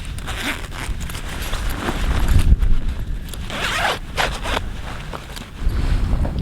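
A zipper pulled open or shut in several short strokes, the longest pull coming a little past halfway, over a steady low rumble of wind on the microphone.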